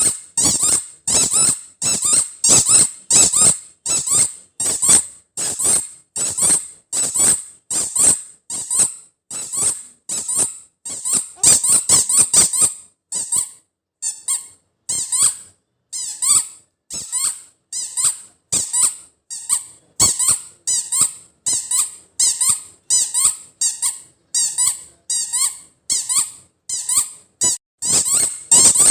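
Squeaky toy ball for children squeezed over and over, giving short high 'chuu chuu' squeaks about twice a second.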